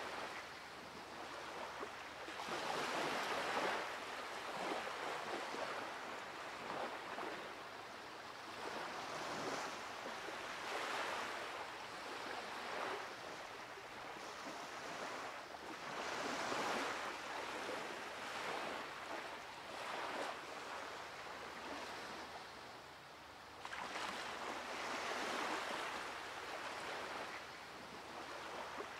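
Ocean surf: waves breaking and washing up a sandy beach, the rush of water rising and falling every few seconds.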